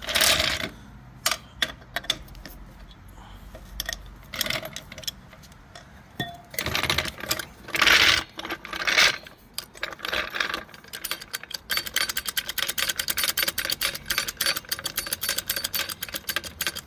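Small car jack being set under the car and worked, first with scattered metal clanks and scrapes, then from about eleven seconds in a fast, even run of ratcheting clicks as it is raised.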